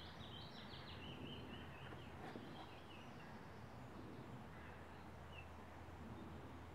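Faint woodland ambience: a small songbird sings a quick run of high notes at the start, then gives two short single chirps later, over steady low background noise.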